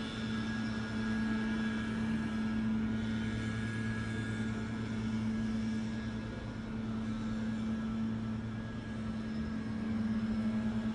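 A steady low mechanical hum, like a motor or engine running, with a fainter higher whine over it. About ten seconds in, the hum begins to pulse.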